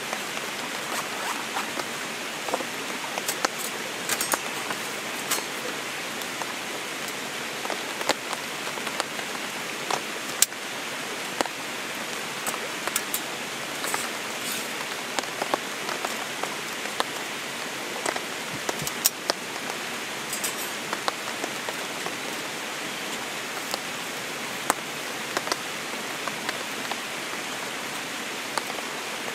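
Steady rain falling, with scattered short sharp clicks and taps.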